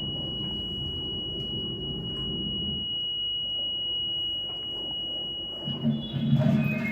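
A steady high-pitched tone held over a low hum. It stops about six seconds in, as other tones and louder sounds begin.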